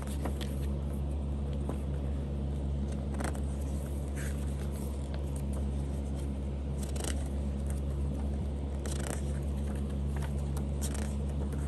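A paper booklet handled and its pages turned, giving a few brief rustles spread out over several seconds, over a steady low hum.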